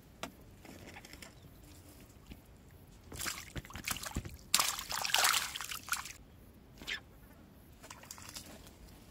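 A hooked tilapia lifted out of the water on a pole line, splashing and flapping. The loudest burst comes about halfway through and lasts about a second and a half, with a few shorter bursts before and after.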